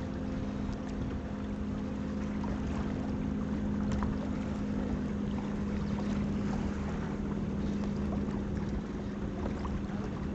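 A boat's engine running steadily, a constant hum, with wind buffeting the microphone.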